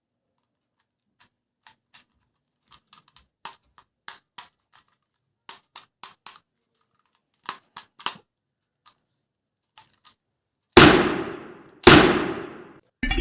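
Plastic clicks and snaps from handling a plastic toy gun, irregular and of varying loudness. Near the end come two loud shot-like bangs about a second apart, each dying away over about a second.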